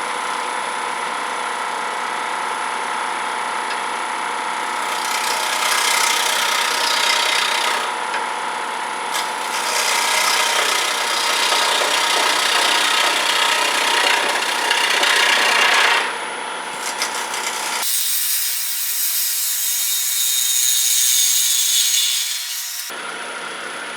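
Grizzly wood lathe running with a steady motor hum while a turning tool cuts into a spinning sweet gum blank, the scraping of the cut coming in three long passes.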